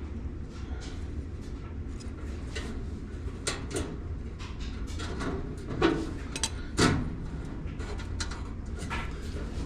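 Black electrical tape being pulled off the roll and wrapped around a wire harness: short scattered rasps and handling noises, two louder ones about six and seven seconds in, over a steady low hum.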